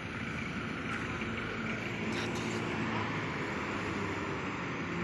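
Engines of a light truck and a motorcycle running as they come around the bend toward the microphone: a steady engine drone, with a few brief sharp ticks about two seconds in.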